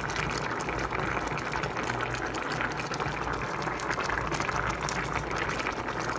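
A large stainless steel pot of pork and bean soup boiling steadily, a dense bubbling with many small pops.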